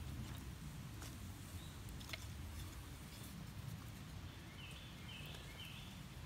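A wood fire burns in a small can hobo stove fed through its side hole, making a low rumble with a few sharp crackles. Near the end a bird calls three short notes.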